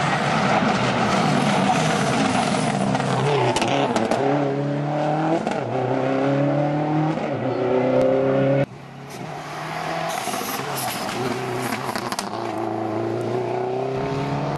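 Subaru Impreza WRX STi rally car's turbocharged flat-four engine accelerating hard through the gears, its pitch climbing and then dropping back at each upshift. The sound breaks off abruptly about nine seconds in, and another hard run builds up again.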